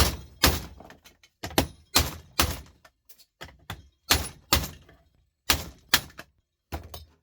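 Hammer striking the plastic casing of an electronic unit to break it open for scrap: about a dozen sharp blows, often in quick pairs, each dying away fast.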